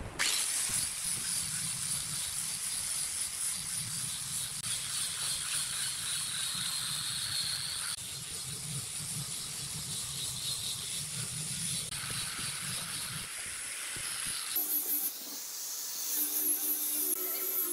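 Handheld angle grinder with a sanding disc sanding curved laminated pallet-wood strips: a steady gritty hiss of abrasive on wood over the motor, changing abruptly at several cuts between passes. About fourteen and a half seconds in it gives way to a steadier motor hum with a high, wavering whine.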